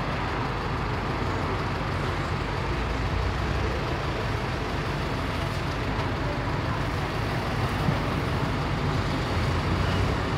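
A vehicle engine idling steadily, with a low, even hum, over street traffic noise.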